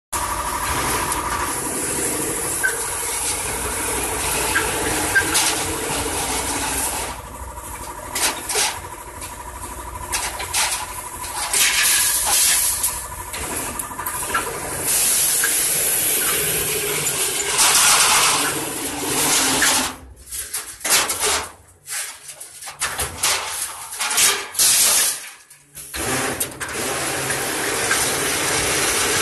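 Steel bar bending machine running: a steady hissing machine noise with a faint whine. It cuts out briefly several times about two-thirds of the way through.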